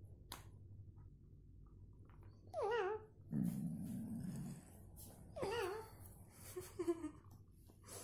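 Alexandrine parakeet calling: two wavering squawks that drop in pitch, about three seconds apart. Between them comes a lower, noisy sound lasting about a second, and a few short chirps follow near the end.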